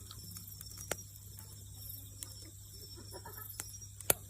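Bonfire crackling: scattered small snaps over a low steady rumble, with a sharp pop about a second in and a louder one near the end.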